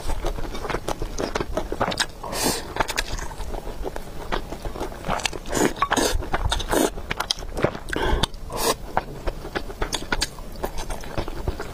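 A person eating: chewing and biting food, with many short wet clicks and a few louder, longer bursts.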